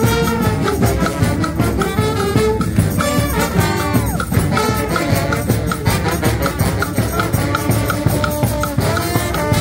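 Street brass band playing an upbeat tune live: saxophones, trumpets and trombone over a bass drum keeping a steady beat, with short repeated horn notes.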